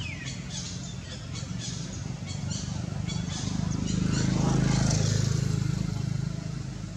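A motor vehicle's engine going past: a low steady hum that swells to its loudest a little past midway, then fades. Short high chirps are scattered over it.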